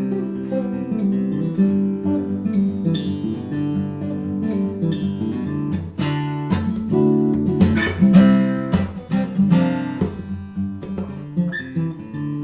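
Acoustic guitar strumming chords in an instrumental passage between sung lines. The strokes get louder and fuller in the middle.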